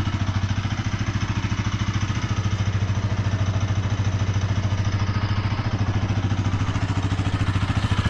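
Bajaj Pulsar NS200's single-cylinder engine running steadily at low revs with an even, regular pulse.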